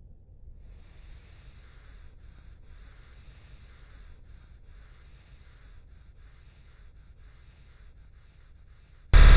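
Hands rubbing back and forth over cloth trouser legs: a faint, dry rubbing with short breaks. Near the end a sudden, very loud, distorted blast cuts in.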